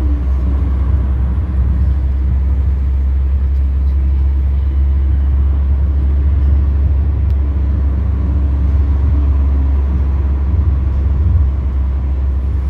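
Steady low road and engine rumble heard inside the cabin of a car moving at speed.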